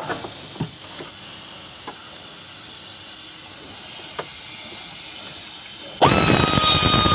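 A few light clicks over a quiet background. Then about six seconds in, a power tool starts and spins straight up to a steady high whine with a hissing edge.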